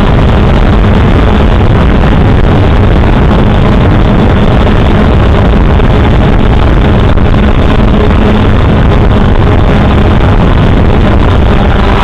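Small drone's motors and propellers running steadily and loud, heard right up close through its own onboard camera microphone, with a constant pitch.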